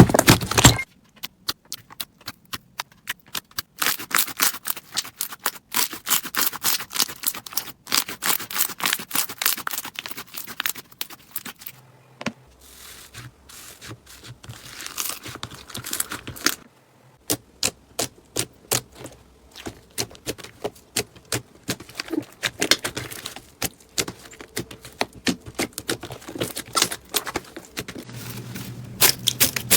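Slime being squeezed and worked by hand: dense runs of sharp clicks and crackling pops, broken by a few brief pauses.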